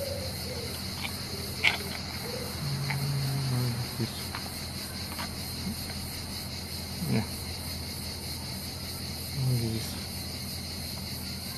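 A few sharp plastic clicks and knocks from a 3D-printed battery adapter being handled and fitted onto a Parkside 20V battery pack, the loudest about two seconds in and another about seven seconds in. Under them is a steady high-pitched hiss, with a couple of short low murmurs.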